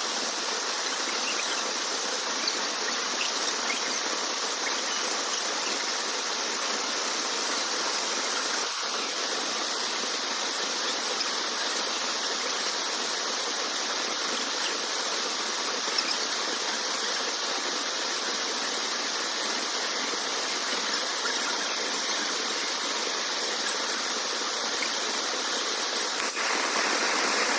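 Steady rushing of falling and flowing water from a waterfall, an even hiss with little low rumble that holds the same level throughout.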